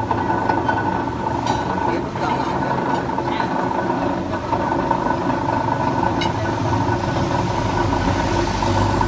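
Three-phase electric rebar cutter's motor and flywheel running steadily, with a few faint clicks; a low hum grows stronger near the end.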